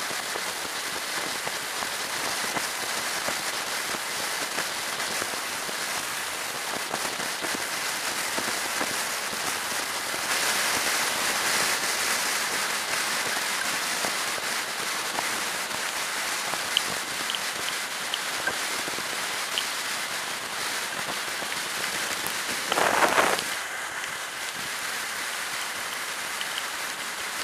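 Steady rush of wind and rain noise on a camera mounted on a motorcycle riding fast on a wet motorway. It swells for a few seconds midway, and there is a short louder gust near the end.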